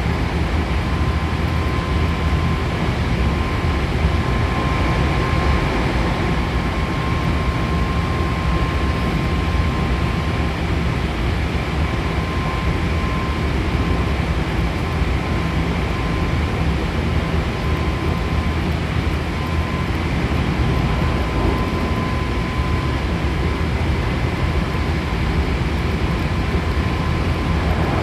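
Hankyu Kyoto Line electric train running at speed, heard inside the passenger car: a steady low rumble of wheels on rails, with a faint high steady whine that comes and goes.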